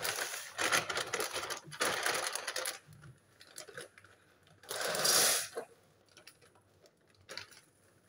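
Rattling and rustling handling noises in bursts: a long clatter over the first few seconds as a metal kadhai is set on a gas-stove grate, another burst about five seconds in as a plastic packet is handled, and a few small clicks near the end.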